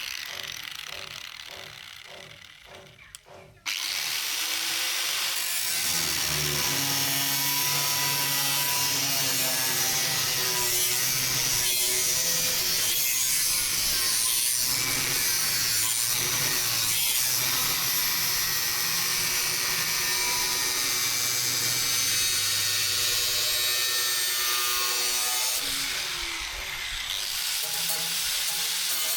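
A power tool grinding steel saw-blade stock: a loud, steady, hissing grind that starts abruptly about four seconds in, with a motor whine shifting in pitch as it loads, and a brief dip near the end. Before it, quieter rhythmic strokes of hand work on the metal.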